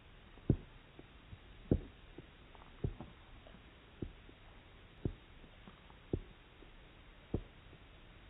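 Yorkshire terrier licking its lips, slowed down in slow motion: a low, deep thud about once a second, seven in all, with fainter smacks between them.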